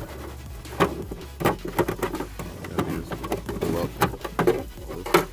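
Sharp plastic clicks and knocks from fingers working the cabin air filter's plastic access cover, coming at irregular intervals, the loudest about a second and a half in and just before the end.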